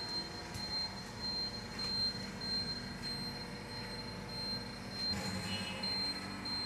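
Workshop machinery in a rubber-mat works running, switched on moments before: a steady low hum under a thin high whine that keeps breaking off and coming back.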